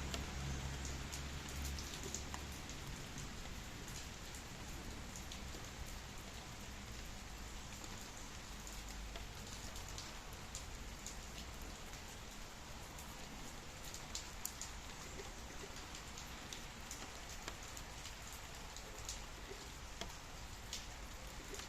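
Steady rain hissing, with scattered individual drops ticking on a surface. A low rumble underneath fades out about two seconds in.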